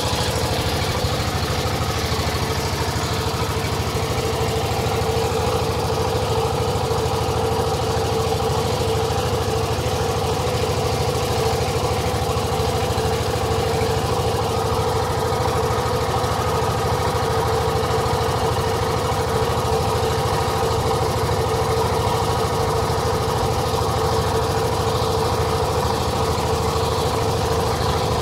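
Engine of a wooden river boat running steadily at an unchanging pitch.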